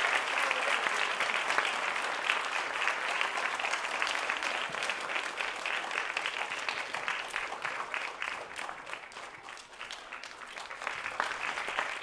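Audience applauding, easing off gradually and picking up a little again near the end.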